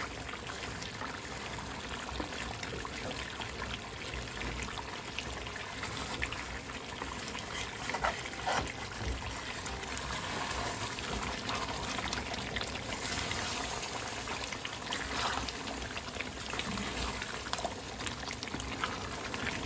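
Mutton cooking in a pot in its own juices and milk, with a steady bubbling sizzle and a few sharp knocks partway through.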